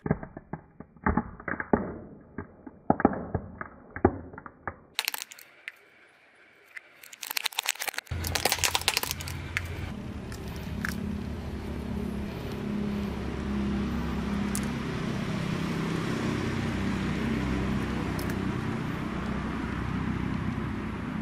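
Hollow plastic skull and jack-o'-lantern toys cracking and crunching under a car tyre: a fast run of sharp cracks over the first five seconds, then a few brighter snaps. After that a steady low rumble runs on, with a few light clicks as small plastic toys are set down on asphalt.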